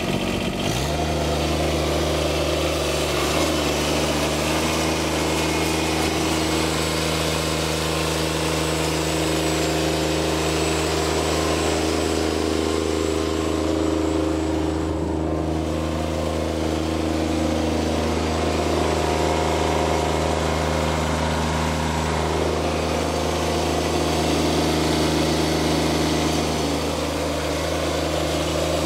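John Deere 2653A trim reel mower's Yanmar diesel engine running at a steady speed.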